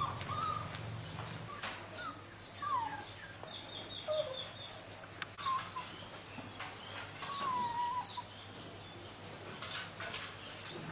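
A small dog whimpering in a cage: several thin, high whines, most of them falling in pitch, at intervals.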